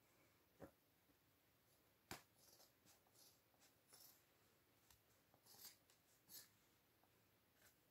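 Faint hand handling of a torn plush toy: short rustles of its fabric and stuffing. There is a soft knock just over half a second in and a sharper tap about two seconds in.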